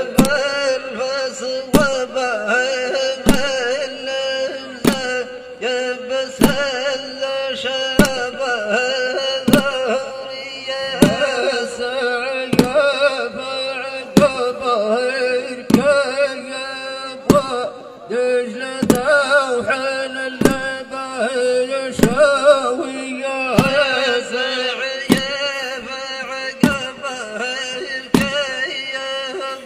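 A voice chanting a Bedouin folk poem in a wavering melody over a steady drone, with a single drum hit about every one and a half seconds.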